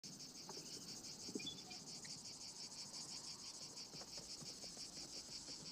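Crickets chirping in a steady, fast pulse, about eight chirps a second, with a few faint knocks underneath.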